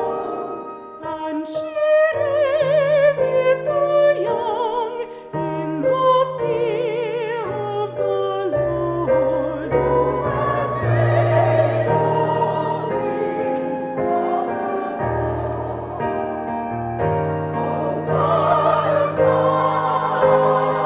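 Music: operatic-style singing with a strong vibrato over held low accompaniment notes.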